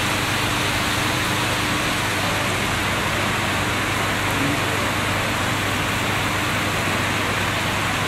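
Heavy rain pouring down on a road and the roof overhead, a steady, even hiss.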